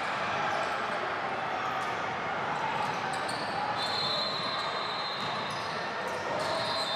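Basketball bouncing on a hardwood gym court during live play, a series of short thuds in the echo of a large gym, over the general hubbub of players and spectators.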